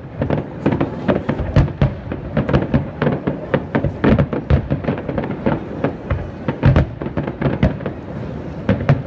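Aerial fireworks display: shells bursting in a rapid, irregular string of bangs, several a second, with a few louder deep booms among them.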